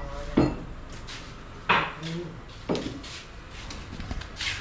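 Metal utensils clanking against a hard surface: four sharp strikes, roughly a second apart, each with a short ring.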